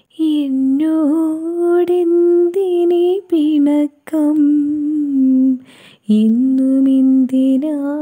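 A woman's voice humming a slow, wordless, lullaby-like melody in long held notes, with brief pauses between phrases.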